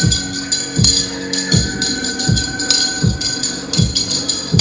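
Percussion-driven music for a temple-festival costume dance: a deep drum hits steadily about every three-quarters of a second, with bright jingling percussion and sustained tones over it.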